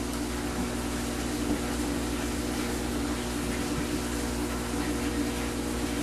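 Steady mechanical hum in a small room, with a few constant tones over a faint even hiss and no distinct events.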